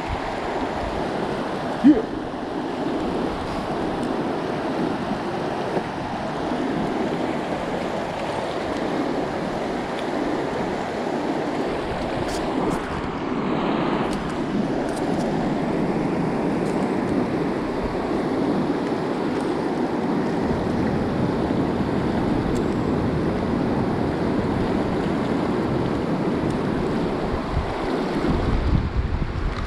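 River water flowing and rippling steadily close to the microphone. There is a single sharp knock about two seconds in, and low wind rumble on the microphone near the end.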